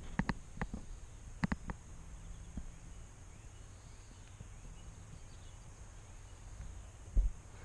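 Handheld camera handling noise: a few sharp clicks in the first couple of seconds and a single low bump near the end, over a quiet steady rural background.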